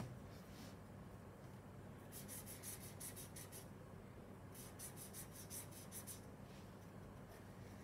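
Pen colouring in on paper: two runs of quick back-and-forth scratchy strokes, about five a second, each lasting a second and a half with a short pause between. The strokes are faint.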